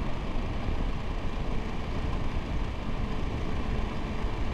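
Triumph Tiger 1200 GT Explorer motorcycle under way at a steady speed: its three-cylinder engine running evenly under a steady rush of wind and road noise, with a faint steady whine.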